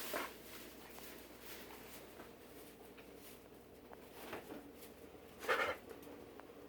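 A pet's short, harsh coughing or gagging, which the owner is unsure how to name. There is one hack right at the start, a fainter one about four seconds in, and a louder one near the end.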